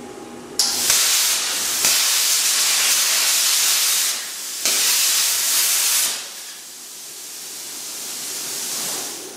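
Hand-held plasma cutter cutting steel off an axle casing: a loud hissing rush that starts suddenly just under a second in, breaks off briefly around four seconds, resumes and stops about six seconds in. A softer hiss of air follows and slowly swells until near the end.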